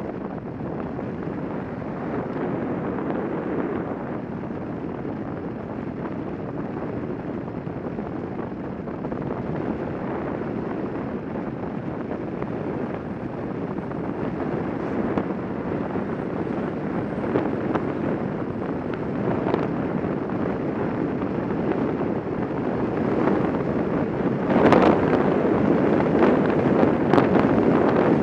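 Steady rushing wind and road noise from a Quest velomobile rolling downhill, growing louder as it gathers speed. Several sharp knocks come near the end.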